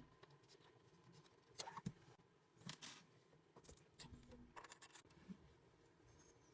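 Near silence, with a few faint scattered clicks and scrapes.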